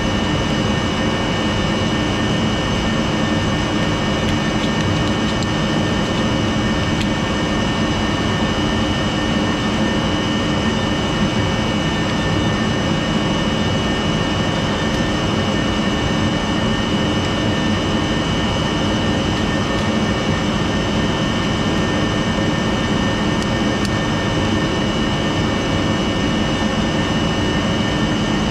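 Steady, loud machine noise: a constant drone with a steady high whine over it, unchanging throughout.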